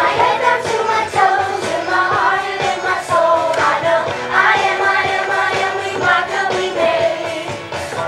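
Music with a group singing a children's Vacation Bible School song.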